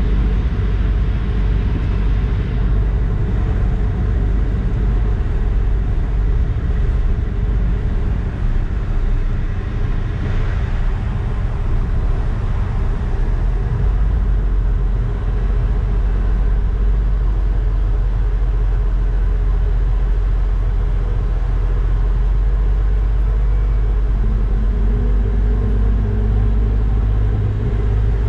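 Passenger ferry's engines running with a steady low drone, mixed with a rushing noise of wind and water. A slightly different engine tone comes in about four seconds before the end.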